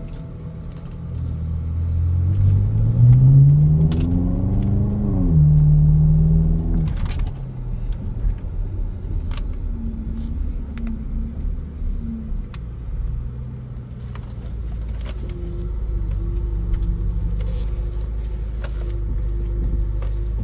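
BMW E70 X5M's twin-turbo V8 accelerating, its pitch climbing for a few seconds before dropping at an upshift about five seconds in, then running at a steadier low pitch as the car cruises.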